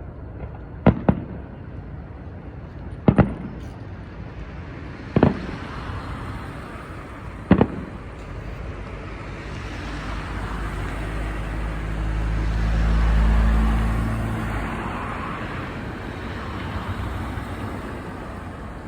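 Four sharp bangs about two seconds apart, each a quick double crack. Then a road vehicle's engine passes close by, swelling to a peak and fading away.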